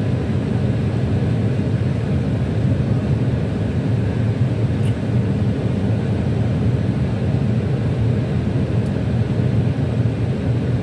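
Steady cockpit noise of an Airbus A321 airliner descending on final approach: an even low rumble of airflow and engines heard from inside the flight deck.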